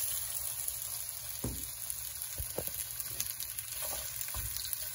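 Potato pieces sizzling in hot oil in a nonstick frying pan: a steady frying hiss, with a few light clicks.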